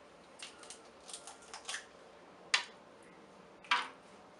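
Snow crab leg shells being cracked and snapped open by hand: a run of small crackles, then two loud sharp cracks about a second apart.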